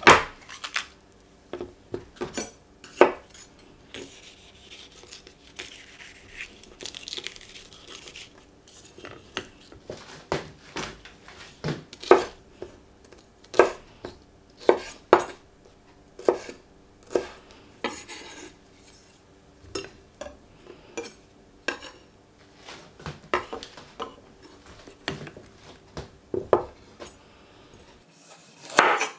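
Chef's knife cutting bell peppers on a wooden chopping board: irregular sharp knocks of the blade against the board, with pieces dropped into a stainless steel bowl. Near the end the knife slices through a carrot. A faint steady hum runs underneath.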